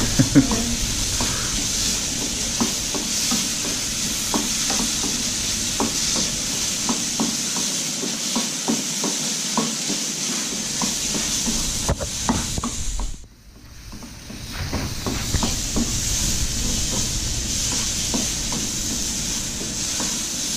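Spice paste sizzling as it fries in a little oil in a frying pan, stirred with a spatula that scrapes and taps against the pan. The sizzle drops away sharply about two-thirds through and builds back over a second or so.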